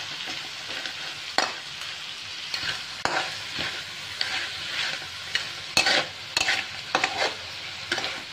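Blue crab pieces and sliced onion sizzling in a hot wok as they are stir-fried. The spatula scrapes and clacks sharply against the pan at irregular moments, more often in the second half.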